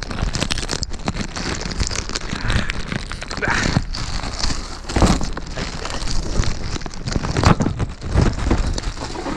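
Clear plastic wrapping bag crinkling and rustling as it is handled close up, with a few louder crackles about five and seven and a half seconds in.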